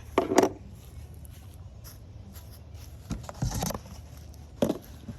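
Handling noise from unpacking parts from a cardboard box: a sharp pair of knocks and rustles at the start, then scattered rustling and one more knock over the next few seconds.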